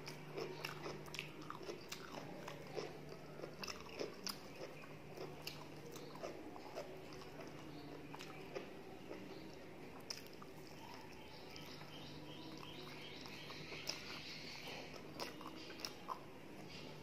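Close-miked sounds of a person eating khichuri and fried vegetables with her fingers, chewing with her mouth closed. Many small wet smacks and clicks, denser in the first half, with a few light crunches.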